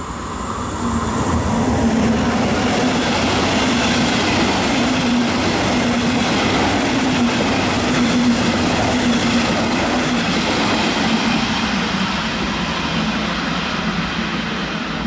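Double-deck regional train passing close by at speed on an electrified main line: wheels running on the rails with a steady low hum. It swells within the first second or two, holds loud, and fades near the end as the train pulls away.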